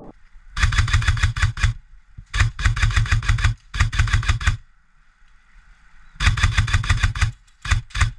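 Airsoft rifle firing rapid full-auto bursts: four bursts of about a second each, with a longer pause after the third, then two short bursts near the end.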